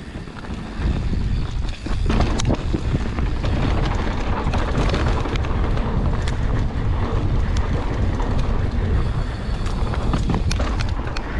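Mountain bike riding down a dirt trail: wind buffeting the microphone over the rumble of tyres on dirt, with scattered sharp clicks and rattles from the bike over bumps. It gets louder about a second in as the ride picks up speed.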